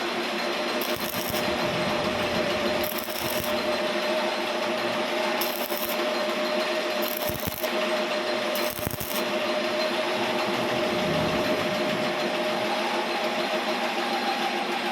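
A metalworking machine runs steadily with a hum, with short bursts of high scraping about every second and a half, as metal is cut or worked on the wheel hub.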